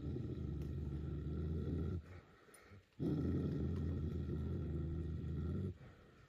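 A dog growling low in two long growls, with a short break about two seconds in: a warning at another dog.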